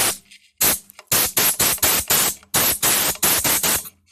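Compressed-air blow gun fired in about a dozen short hissing blasts, roughly four a second, blowing chips out of a freshly bored brake caliper guide bore.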